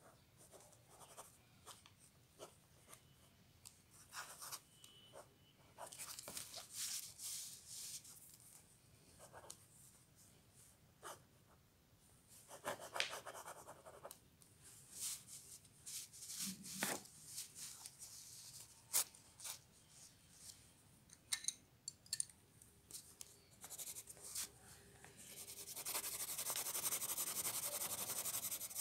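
Pen scratching on paper in short, irregular strokes with occasional light taps. Near the end comes a long stretch of fast, continuous scratching as colour is shaded in.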